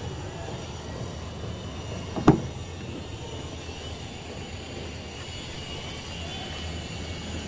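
Steady low background rumble with a faint hiss, and one short sharp sound about two seconds in.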